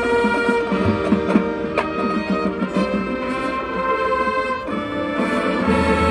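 High school marching band of brass, woodwinds and drums playing held chords over percussion hits.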